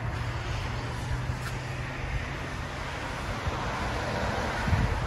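A 2015 Chevy Silverado's 6.2-litre V8 idling through long-tube headers, high-flow cats and a Borla ATAK cat-back, a low rumble from the dual exhaust tips with a brief louder swell near the end.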